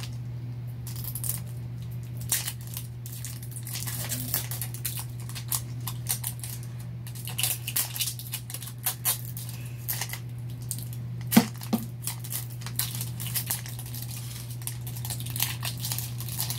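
Plastic wrapper being picked at, peeled and torn off a Mini Brands capsule ball: a long run of crinkles, crackles and small clicks, with a sharper snap about eleven seconds in. A steady low hum runs underneath.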